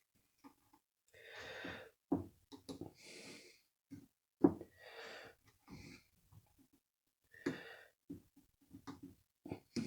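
A man's breathing close to the microphone, several soft hissing breaths, mixed with short sharp clicks and taps of small tools on metal as a piston-pin circlip is worked into place.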